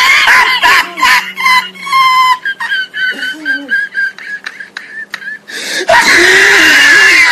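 A young voice squealing and shrieking at a high pitch right at the microphone, loud enough to distort, in bursts near the start and again from about six seconds in.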